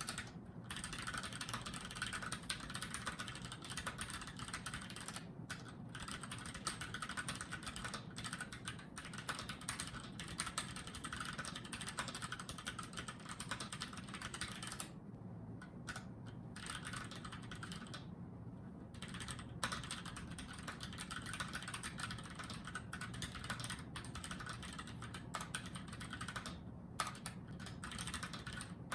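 Keychron K6 mechanical keyboard being typed on: a steady rapid clatter of key presses, broken by a few short pauses.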